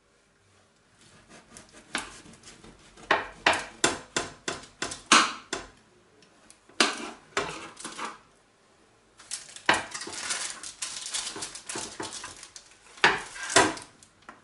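A metal spatula scrapes and knocks against a metal baking tray as it is worked under a baked loaf to loosen it. There is a series of short sharp scrapes, then a longer stretch of continuous scraping, then two louder scrapes near the end.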